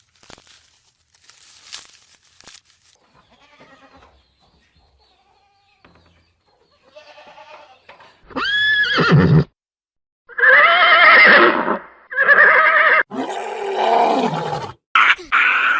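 A run of animal calls: faint scattered sounds at first, then from about eight seconds in a series of five loud, pitched calls, each one to two seconds long with short breaks between them.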